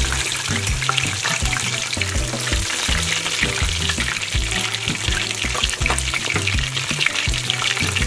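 Breaded chicken breasts deep-frying in hot oil in a saucepan: a steady, dense crackling sizzle.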